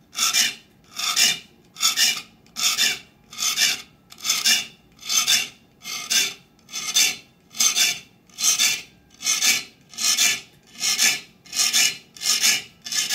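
Small three-cornered steel file sharpening the fine 22-tooth-per-inch teeth of a handsaw held in a vise, one short rasping stroke per gullet in a steady even rhythm of about one and a half strokes a second, with brief pauses between.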